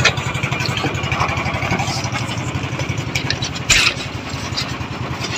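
A fishing boat's engine running steadily with an even pulse, and a single knock a little past halfway.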